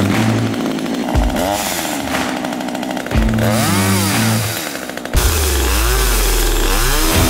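Small two-stroke top-handle chainsaw, pull-started and then revved several times, its engine pitch rising and falling with each blip of the throttle. A louder, sustained run begins about five seconds in as it cuts into a thin branch. Background music runs underneath.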